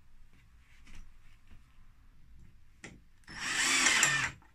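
Cordless drill-driver running for about a second, starting about three seconds in, as it drives a screw through a small metal anti-tip bracket into a wardrobe side panel.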